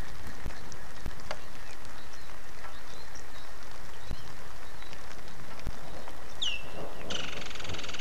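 Steady rain hiss with scattered drops ticking close by. Near the end a bird gives one falling call, followed by a fast rattling trill.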